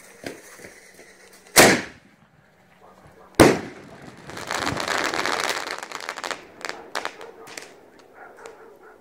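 Crackling willow canister shell ('dog bone') fired from a mortar tube. The lift charge bangs about a second and a half in, and the shell bursts with a second loud bang about two seconds later. Dense crackling follows for a few seconds, then thins to scattered pops.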